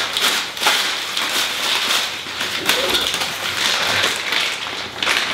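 Crinkling and rustling of brown packing paper and plastic wrap being pulled off and handled, a dense run of small crackles.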